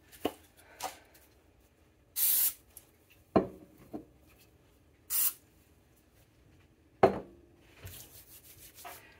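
Aerosol cooking-oil spray can hissing in two short sprays about three seconds apart, coating hands with oil. Around them are a few sharp knocks, the loudest about seven seconds in, and near the end hands rubbing the oil together.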